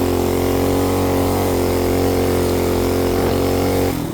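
Small 212 cc single-cylinder engine running flat out at a steady high speed, then dropping off sharply near the end as the throttle comes off.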